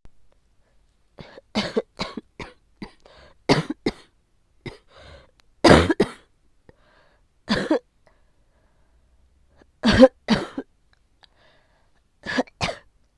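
A woman coughing in repeated fits of a few short coughs each, with pauses between. The loudest fits come about halfway through. It is a harsh, phlegmy cough from COVID-19 infection.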